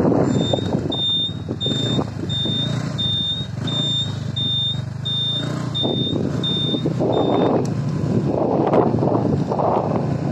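Wind buffeting the microphone on a moving road vehicle, over a low steady engine hum. A high electronic beep repeats about three times every two seconds, like a turn-signal buzzer, and stops about seven and a half seconds in.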